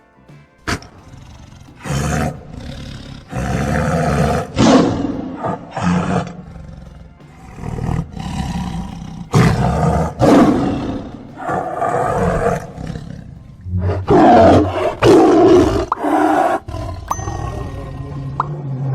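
A tiger roaring again and again, in a run of loud calls about a second or two long with short gaps between them.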